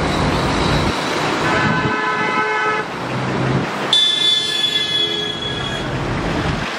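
Two long vehicle horn blasts over road and engine noise: the first about a second and a half in, lasting just over a second, the second, louder and higher, starting about four seconds in and held for about two seconds.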